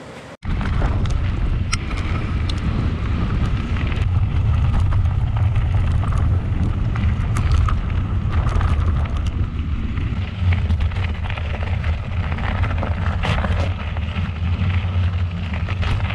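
Wind buffeting the microphone of a camera on a mountain bike being ridden over frozen, snowy trail, a steady low rumble with scattered clicks and rattles from the bike over bumps. It starts abruptly about half a second in.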